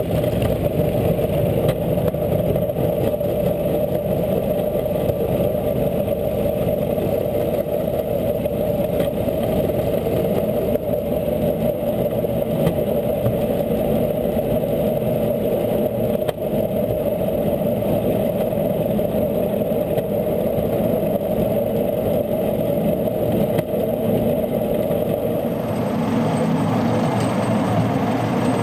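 Rail-mounted golf cart travelling along a railway track: a steady drone of its engine and wheels running on the rails, changing in tone near the end.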